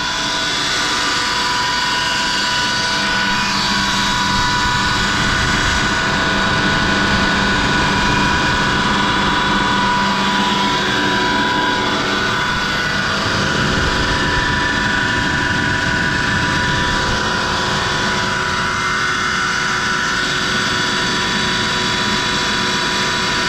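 Eaton EC-SRW3-20HP-DV 20 hp air-cooled rotary screw air compressor running with its side covers off: a steady, pretty loud whine and hum holding several fixed tones.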